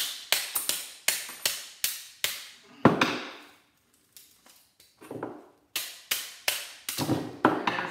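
Hand hammer striking a transformer's steel core to knock it free of the copper coils: a quick run of sharp metallic blows about three a second. The blows stop for about two seconds partway through, then resume.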